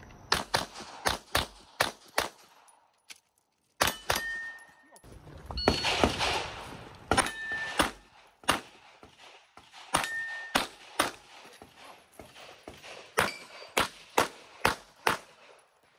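Glock 26L 9mm pistol firing in fast strings of shots, with short metallic rings after some hits that are typical of steel targets.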